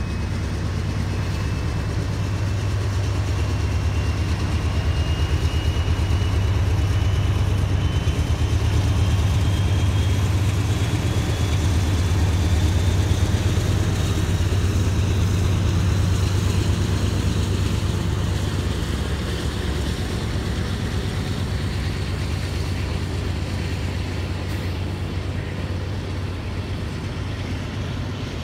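A freight train led by two CSX diesel locomotives passing, their engines a deep steady rumble that is loudest as the locomotives go by about halfway through. The rolling of auto-rack cars follows. A faint high whine slowly rises in pitch through the first half.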